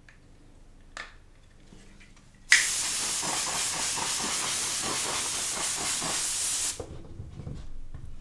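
Compressed air sprayed in one continuous hiss of about four seconds, starting sharply a couple of seconds in and cutting off abruptly. There is a single light click about a second in.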